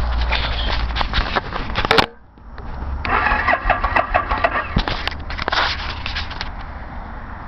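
Suzuki motorcycle's electric starter cranking the engine, which does not catch: a non-starting bike. The cranking cuts off suddenly about two seconds in, then a second crank runs from about three to five and a half seconds before dying down.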